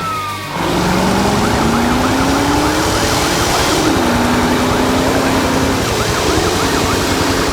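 Cartoon emergency-vehicle siren sound effect, a fast up-and-down wail, starting about half a second in, over a low tone that rises and then holds steady.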